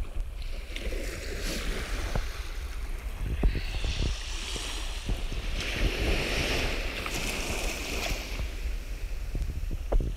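Small waves washing up onto a sandy beach, with a hissing wash that swells about four seconds in and lasts several seconds. Wind rumbles on the microphone throughout, and there are a few soft thuds of footsteps on the wet sand.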